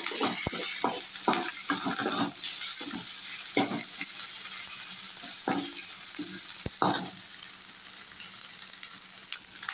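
Sliced onion, garlic, chillies and ginger-garlic paste sizzling in hot oil in a metal karahi, with a steady hiss. A metal slotted spoon scrapes and knocks against the pan now and then as the mixture is stirred.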